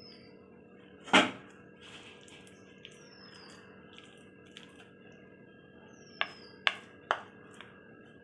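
A few light knocks and clicks of a plate and wooden spatula being handled, one louder about a second in and three close together near the end, over a faint steady hum. Two short high whistles fall in pitch in between.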